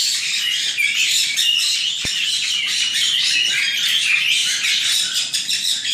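A flock of white-bellied caiques chattering loudly, many high calls overlapping without a break.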